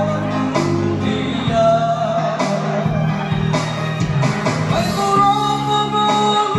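A man singing into a microphone over accompanying music, amplified through a PA in a large hall; he holds a long note near the end.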